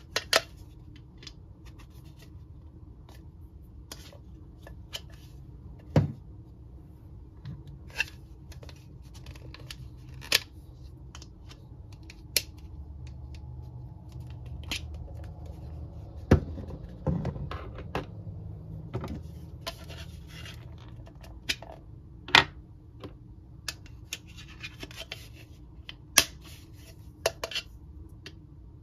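Plastic Mr. Potato Head parts being handled and pressed into the hollow plastic potato body: scattered sharp clicks and knocks with stretches of scraping and rubbing, over a low steady hum.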